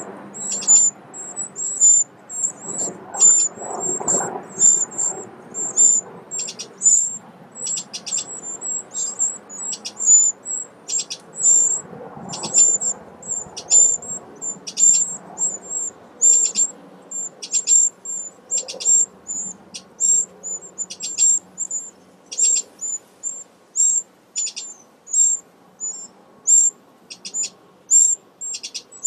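Eurasian wren nestlings begging in the nest, a steady series of high, thin cheeps at about two a second.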